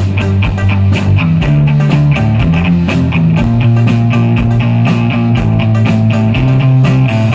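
A live rock band playing, with electric guitar, bass and a fast, steady drum beat.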